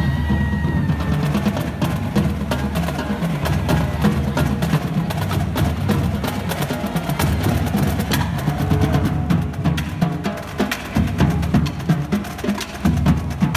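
Marching drums playing a rapid cadence: crisp, dense stick and snare strikes over a pulsing low drum beat.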